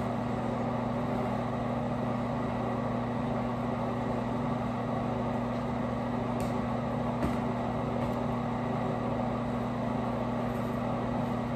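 Steady droning hum with an even fan-like rush, as from a restroom ventilation fan, with two faint light clicks about six and seven seconds in.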